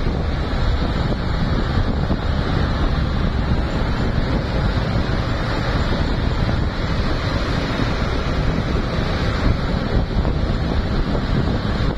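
Steady rushing wind noise buffeting the microphone, heaviest in the low rumble.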